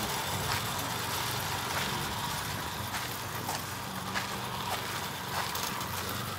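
Clockwork tinplate model steam locomotive running along the track pulling its wagons: a steady whirr from the wound spring motor, with scattered light clicks of wheels on the rails.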